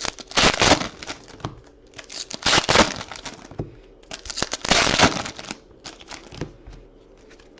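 Foil trading-card pack wrappers being torn open and crumpled: three loud bursts of crinkling and tearing, with smaller crackles between.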